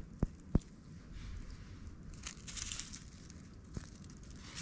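Two dull thumps in quick succession, then crinkly rustling and crunching, with one more soft knock near the end.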